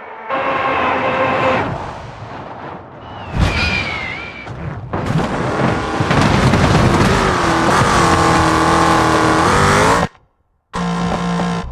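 Race-car engine and tire-squeal sound effects over background music. There is a sharp hit with a wavering squeal about three seconds in, then a long stretch of engine revving that rises and falls. It cuts off suddenly near the end, and after a short silence a steadier sound starts.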